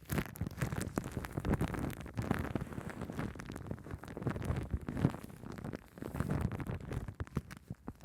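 Shaving cream foam being squished and rubbed on a microphone, giving a dense, irregular crackling with small pops that swells and fades.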